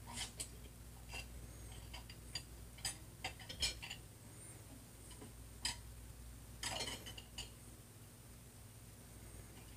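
Faint, scattered clinks and clicks of dishes and cutlery being handled in a kitchen, heard from a film soundtrack through a TV speaker, with a short clatter about seven seconds in. A low steady hum runs underneath.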